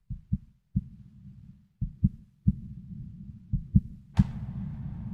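Heartbeat sound effect: low thumps, several in close pairs, over a low rumble. About four seconds in, a sharp hit rings on as music begins.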